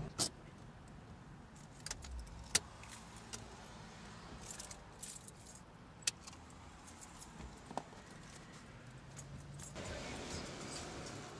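A bunch of car keys jangling as they are handled and pulled from the ignition of a parked convertible, with several sharp clicks and small metallic ticks.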